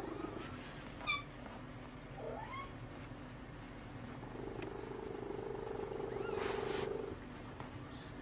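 Kittens mewing: a few short, high mews and one rising mew in the first three seconds. From about four to seven seconds in comes a steady pulsing sound.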